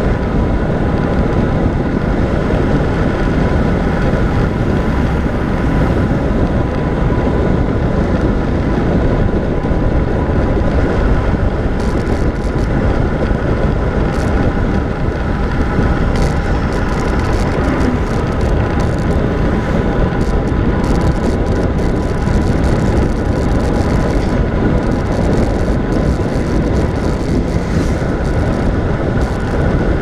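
Wind buffeting the microphone of a camera on a road bike descending at speed, a loud steady roar mixed with the rush of tyres on asphalt. A faint steady whine runs under it.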